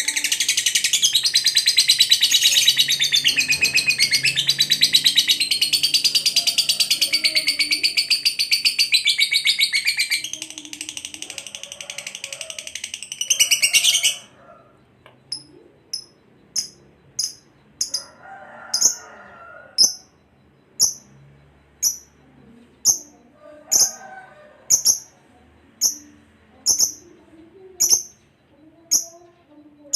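Lovebird singing a long, loud, high-pitched rapid chattering trill that cuts off abruptly about halfway through, followed by short sharp chirps repeated about once a second.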